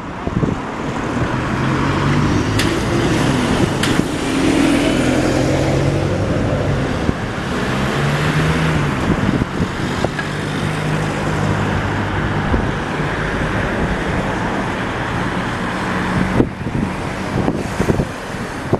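Single-deck diesel bus pulling away from a stop, its engine note rising as it accelerates, then running on with passing car traffic and road noise.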